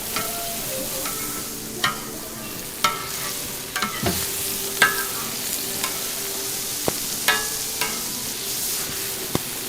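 Toast fillings sizzling on a street-stall griddle, a steady frying hiss, with sharp clicks and taps about once a second from utensils working on the griddle.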